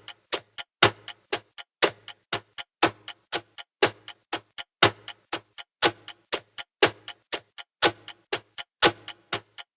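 Clock ticking: short sharp ticks, about three to four a second, with a louder, heavier tick about once a second.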